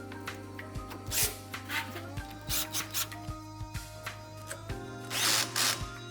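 A power drill driving screws in short bursts, the longest and loudest near the end, over steady background music.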